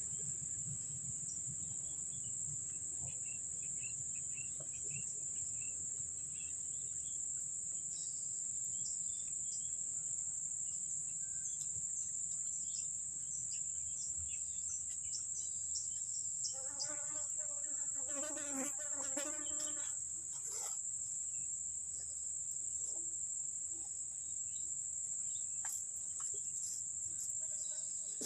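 Steady high-pitched drone of insects. About two-thirds of the way through, a wavering pitched call sounds for a few seconds.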